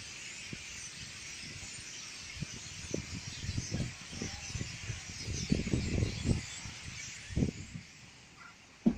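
A flock of starlings chattering continuously in the trees, a dense mass of overlapping high calls. Scattered low thumps run through the middle of it.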